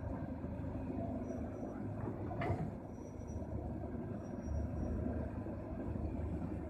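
Diesel engines of a Hyundai hydraulic excavator and a dump truck running, a steady low rumble that grows heavier about four and a half seconds in. A single sharp knock sounds about two and a half seconds in.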